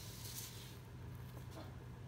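Quiet background with a steady low hum and a brief soft rustle shortly after the start.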